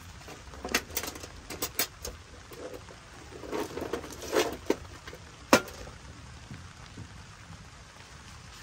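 Rain falling steadily, with a run of sharp, irregular knocks and clicks over the first half or so, the loudest one about five and a half seconds in.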